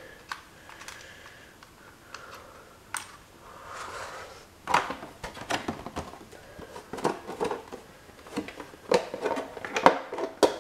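Clicks, taps and rustling of a hard plastic RC truck body shell being handled and fitted down onto the chassis, with small clicks from the wire body clips and posts; the clicking comes in quick scattered runs, busier in the second half, with one sharp click near the end.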